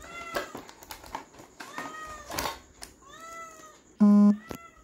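Three short, high mewing calls, each rising and falling over about half a second, with the crinkle of plastic packaging being handled. About four seconds in comes a brief, loud, flat buzz.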